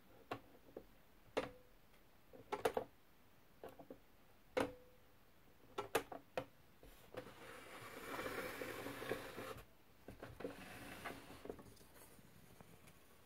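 Sharp plastic clicks and clacks from a 1975 LJN Mickey Mouse toy index typewriter being handled and worked, some with a short ring. About seven seconds in comes a scraping rustle lasting about two seconds, followed by a few lighter clicks.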